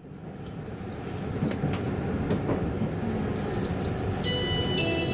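Running noise inside a 681-series express train car: a steady low rumble with a few faint clicks. About four seconds in, the train's onboard electronic chime begins as a bright melody.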